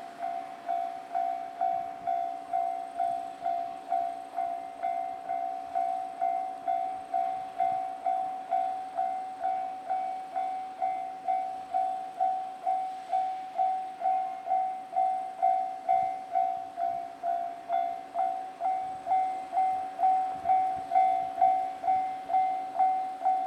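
Japanese railway level-crossing warning bell on the Nankai Koya Line, ringing its electronic 'kan-kan' tone in a steady even beat of about two strokes a second, a little louder in the second half.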